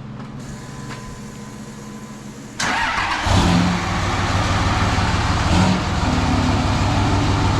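Dodge Cummins inline-six turbo diesel starting up about two and a half seconds in, catching at once and settling into a steady, pulsing idle. It is the first start after a clutch replacement, with the clutch pedal held in.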